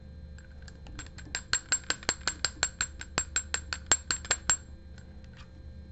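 A fly-tying hair stacker with a brass cup, tapped over and over on a hard surface to even the tips of a bunch of elk hair. A few scattered taps, then a steady run of about six sharp taps a second that stops about four and a half seconds in.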